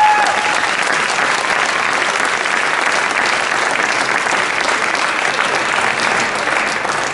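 Crowd applauding, many hands clapping at an even level.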